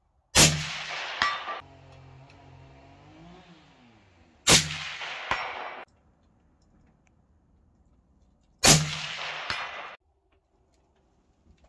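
Three suppressed shots from a Blaser R8 rifle, about four seconds apart, each echoing for about a second. Roughly a second after each shot comes a fainter metallic clang of the steel gong target being hit at 300 m.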